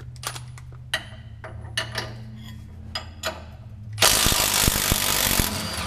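A few light metal clicks, then a cordless impact wrench hammers for about a second and a half near the end, breaking loose the lower shock-mount bolt.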